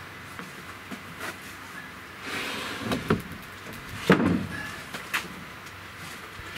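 Crawlspace access door being scraped and knocked into place: a scraping a little after two seconds in, then a few knocks, the loudest about four seconds in.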